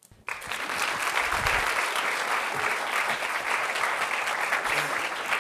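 Audience applauding, starting a moment in and keeping up steadily.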